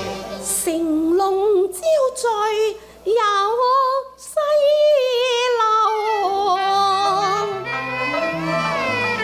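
A woman singing a Cantonese opera (yuequ) song, a long drawn-out passage with wide vibrato and sliding pitch, over a Chinese instrumental accompaniment whose steady held notes come back to the fore near the end.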